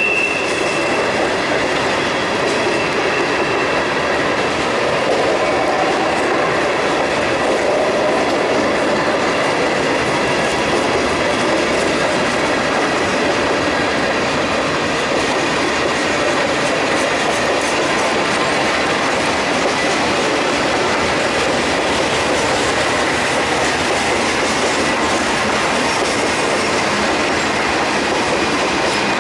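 Norfolk Southern freight cars, empty bulkhead flatcars and then covered hoppers and a tank car, rolling steadily past on curved track: continuous wheel-on-rail rumble with clickety-clack, and a thin, steady high squeal from the wheel flanges.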